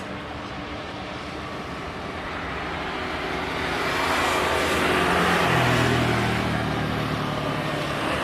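A vehicle passing close by: a rushing noise swells to a peak about five or six seconds in and then eases off, and a low hum drops in pitch as it goes past.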